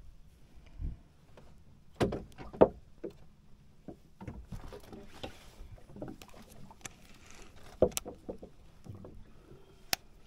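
Irregular knocks and bumps on a small fishing boat, with a few sharp clicks among them; the loudest thump comes about two and a half seconds in.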